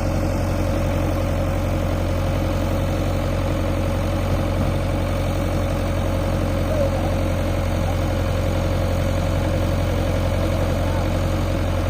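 Diesel engine of a JCB 3DX backhoe loader idling steadily.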